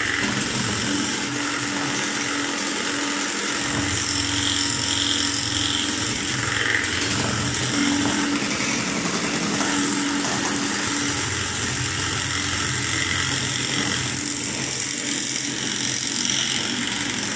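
Electric hand mixer running steadily, its beaters whisking a creamy batter in a stainless steel bowl.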